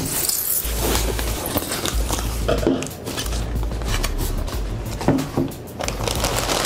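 Packing tape being pulled off a styrofoam shipping box, crackling and rustling, then the foam lid lifted off.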